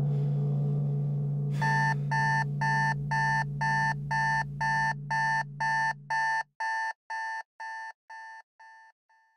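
Digital alarm clock beeping in a fast, even series, about two and a half beeps a second, fading out near the end. Under the first part a low steady hum dies away about six and a half seconds in.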